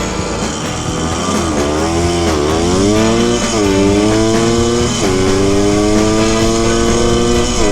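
1974 Honda MT250 Elsinore's two-stroke single-cylinder engine accelerating on a ride. The revs dip and recover, then climb steadily through the gears, dropping quickly at each of three upshifts.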